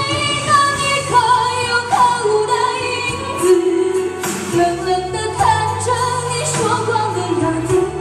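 A woman singing a Mandarin pop song live into a microphone over a backing track with a steady beat, amplified through a stage PA.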